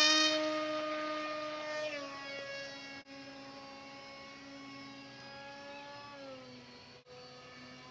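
Electric motor and propeller of a Joysway Dragonfly RC seaplane whining at high throttle just after taking off from the water. The whine fades steadily as the plane flies away, and its pitch steps down twice, about two seconds in and again near the end.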